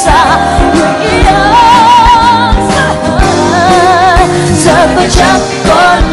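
A woman singing a Vietnamese pop ballad, holding long notes with a wide vibrato, over a live band with drums.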